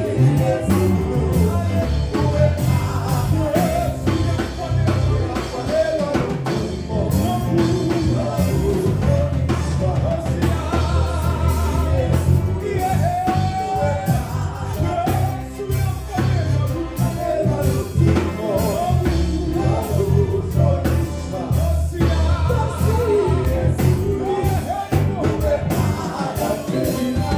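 Church worship music: voices singing over a band with a steady bass line.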